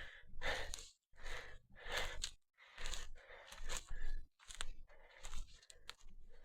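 Footsteps crunching on the ground at a steady walking pace, about one step every 0.8 seconds, with sharp snaps among them.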